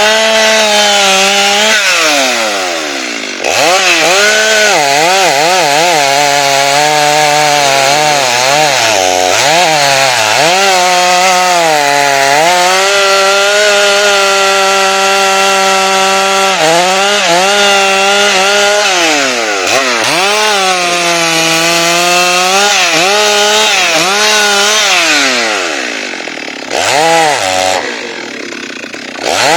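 Chainsaw running hard, cutting rubber tree wood, its engine pitch wavering up and down under load. It drops off briefly about three seconds in, and again near the end before revving back up.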